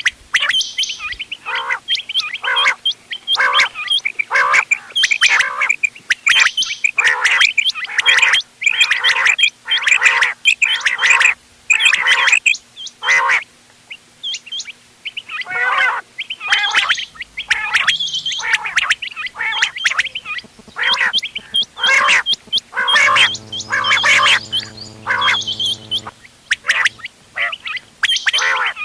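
Quail calls for hunting, several quails calling together in a dense run of short, sharp, repeated notes, thinning briefly about halfway through. A low buzzing hum joins for about three seconds near the end.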